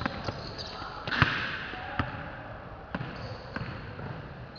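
A basketball bouncing on the court during play: a few separate, unevenly spaced bounces, the loudest about a second in.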